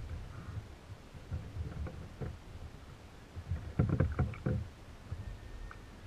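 Water lapping and knocking against a fishing kayak's hull, with a louder burst of knocks and clatter about four seconds in.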